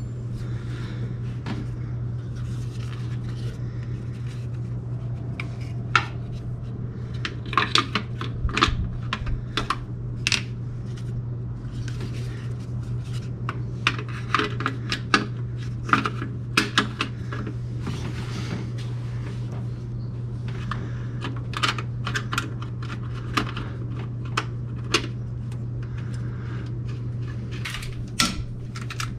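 Metal hand tools and small metal parts clinking and tapping at irregular intervals over a steady low hum.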